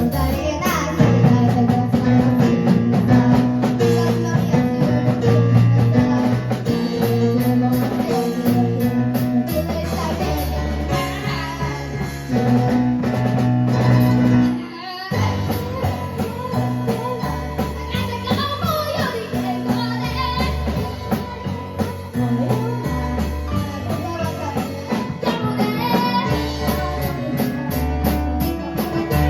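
Live band music: a drum kit keeping a steady beat under keyboard, with a singing voice. The music briefly cuts out about halfway, then picks up again.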